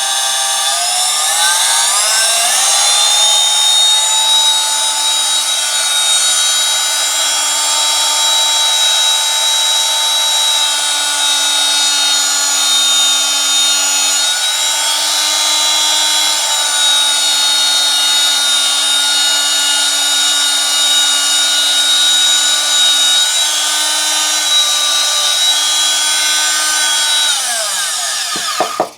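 Chicago Electric variable-speed oscillating multi-tool's electric motor running loud, its whine rising as it winds up to high speed. The whine holds steady with a couple of slight dips, then winds down and stops near the end.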